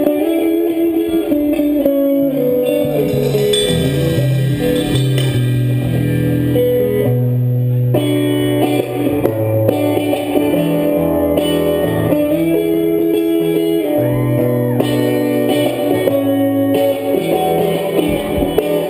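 Live band music: electric guitar playing sustained notes, with a bass line coming in about two seconds in and no drums.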